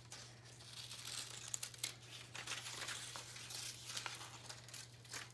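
Scissors snipping through green construction paper, faint and irregular, with the paper crinkling as it is turned in the hand.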